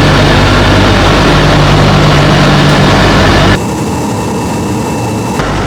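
Loud, steady drone of a Tu-95MS bomber's four turboprop engines with their contra-rotating propellers. About three and a half seconds in it cuts abruptly to a quieter, thinner engine sound.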